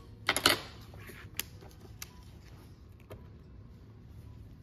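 Steel ruler and hand tools handled on a workbench: a short clatter of sharp clicks about half a second in, then a few light ticks.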